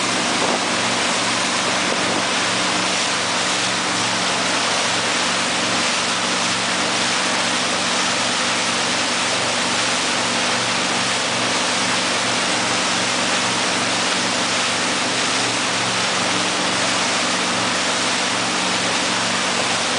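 Speedboat engine running steadily under way, under the loud, even rush of its churning wake.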